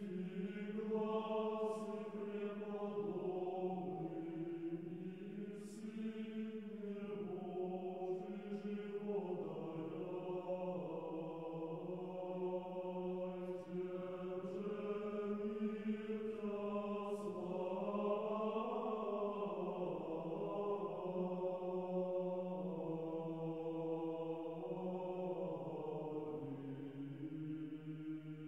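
Background music of slow vocal chant: voices holding long notes that change pitch every few seconds, settling lower near the end.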